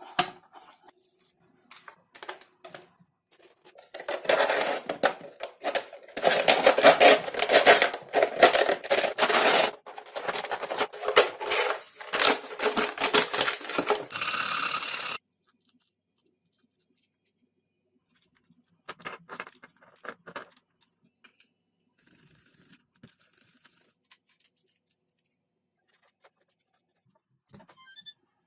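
Handling and working of scrap craft materials: cutting, scraping and rustling. A dense, loud stretch in the middle stops abruptly, and sparse light clicks and rustles follow.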